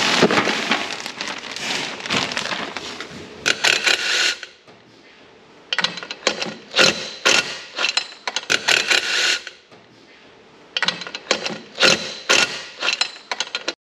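A plastic bag rustling, then repeated short bursts of metallic clatter from a cordless Makita 18V driver working bolts on a car engine, cutting off abruptly near the end.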